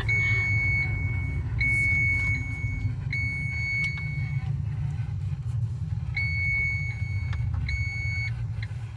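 Inside a Fiat car driving slowly: low engine and road rumble, with a high electronic beep sounding several times, each tone about a second long, with a pause in the middle.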